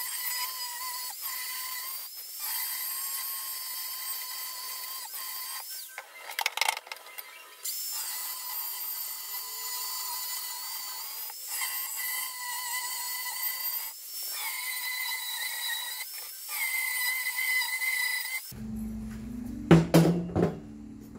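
Angle grinder with a cut-off disc cutting metal square tubing: a steady high motor whine with a hiss, the pitch sagging briefly each time the disc bites, with a short break about six seconds in. Near the end the grinding stops and metal tube rails are set down on a wooden table with a few sharp knocks, the loudest sounds here.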